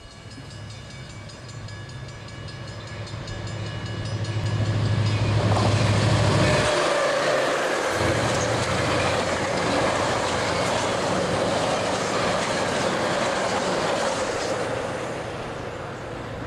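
Metra commuter train of stainless-steel bilevel gallery cars passing at speed. A low engine drone builds and cuts off abruptly about seven seconds in, while the rushing of cars and wheels grows loud and carries on for several seconds before easing near the end.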